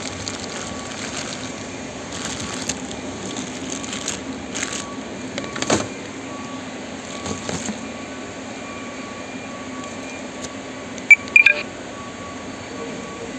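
Handheld barcode scanner beeping twice in quick succession near the end, the short high beeps of successful scans. Under it a steady low hum, with a few light knocks and clicks earlier on.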